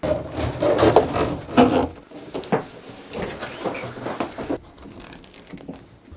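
Corrugated plastic conduit being uncoiled and pulled into a plywood cabinet: rustling and scraping with scattered knocks against the wood, busiest in the first two seconds, then quieter handling.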